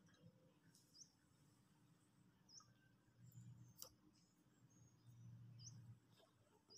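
Near silence: faint room tone with four short, faint high chirps and a single click just past the middle.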